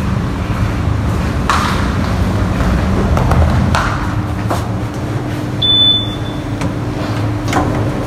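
Passenger lift arriving and being boarded: a steady low hum with a few knocks as the sliding doors open and people step in, then a short high beep about six seconds in.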